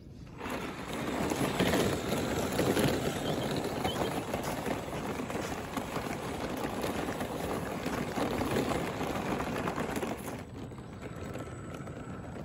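Radio-controlled scale crawler driving over loose gravel and rocky dirt: a rough crunching and crackling of tyres on stones, easing off about ten seconds in.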